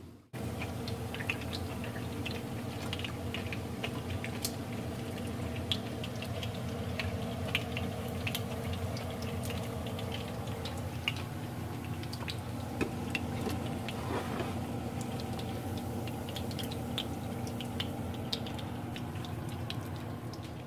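Tuna cakes sizzling in shallow frying oil in a pan: a steady sizzle with many small scattered pops and crackles of spitting grease, over a steady low hum.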